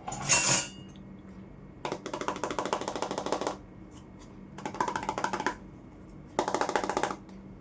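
Three runs of fast, even clicking from miniature plastic toy kitchen pieces being tapped or scratched, the first about two seconds in and the longest. A short burst of noise comes right at the start.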